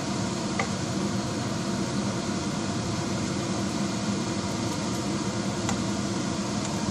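Steady hiss of steam escaping from a stovetop pressure cooker.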